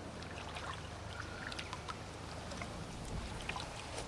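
Faint water trickling and small splashes as a landing net with a just-caught carp in it is lowered back into the lake, with scattered light clicks from the tackle under a low steady rumble.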